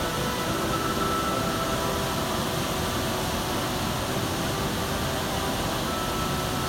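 Šum waterfall roaring, a steady, even rushing of falling water with no breaks. Soft sustained music notes are laid over it.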